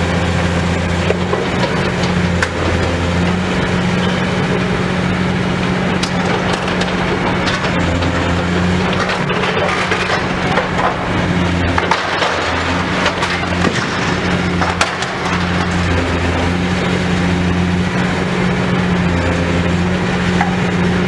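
Demolition excavator's diesel engine running with a steady low hum while building debris cracks, splinters and crunches under the machine's work.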